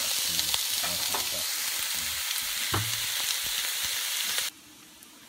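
Chunks of pork belly sizzling as they are laid by hand into a hot, dry pan with no oil added, frying in the fat that renders out of them. The sizzle cuts off suddenly near the end.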